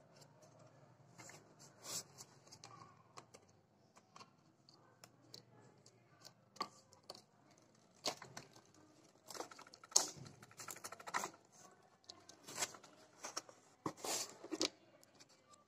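Irregular taps, scrapes and rustles of hands handling a homemade cardboard box, coming thicker in the second half.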